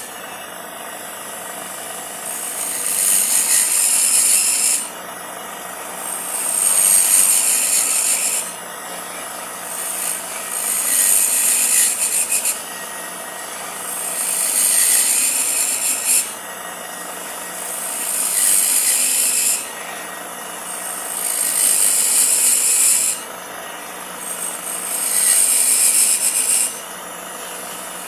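Wood being worked with a cutting or abrasive tool in seven long, hissy passes, one about every three and a half seconds, each swelling and then stopping suddenly.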